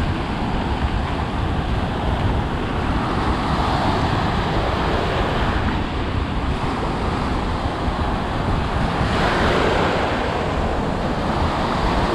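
Gulf surf breaking and foaming water washing in around the shins, with wind rumbling on the microphone. The wash swells louder about three seconds in and again around nine seconds.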